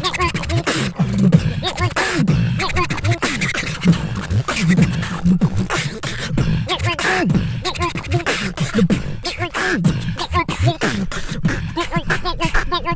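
Human beatboxing: rapid percussive mouth clicks and snares over a low bass line. High, bending vocal tones are woven through it, the beatboxers' 'small voice' technique.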